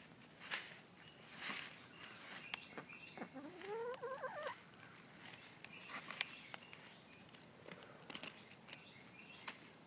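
Branches and leaves rustling and crackling as they are grabbed and pulled, with a few faint small-bird chirps. About three seconds in, a single call rises in pitch for over a second.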